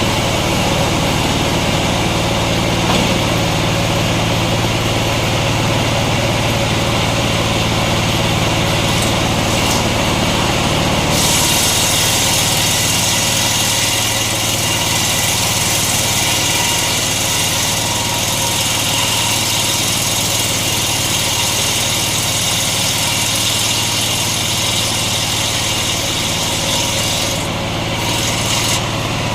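Engine-driven homemade circular sawmill running with a steady hum. About eleven seconds in, the blade bites into a coconut log and a loud, high cutting hiss joins, easing off briefly near the end.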